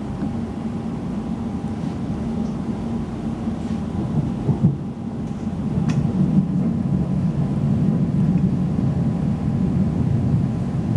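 Interior running noise of a Class 345 electric multiple unit travelling at speed: a steady low rumble of wheels on the rails with a faint constant whine, and a couple of sharp clicks about halfway through.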